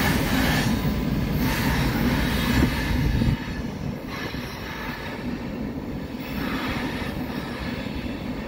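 Freight train rolling over a steel girder railroad bridge, a steady rumble of wheels and cars on the rails. The loud low rumble drops off suddenly about three seconds in, and the train carries on more quietly after that.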